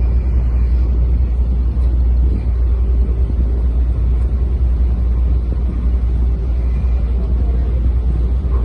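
A ship's engine running steadily, a loud continuous low rumble.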